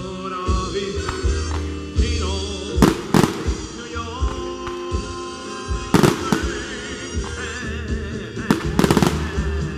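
Fireworks shells bursting with sharp bangs about three seconds in and again around six seconds, then a quick run of crackles near the end, over a loud song sung live.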